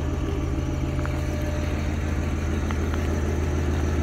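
Engine idling steadily, a low, even hum with no change in speed.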